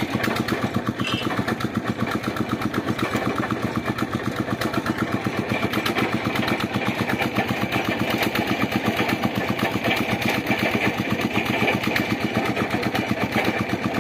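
Engine of a water-well boring machine running steadily, with a fast, even beat.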